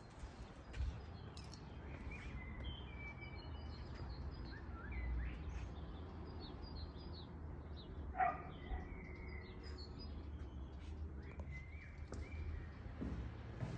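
Small birds chirping and calling in scattered short notes, one call louder about two-thirds of the way in, over a faint low rumble. The calls stop shortly before the end.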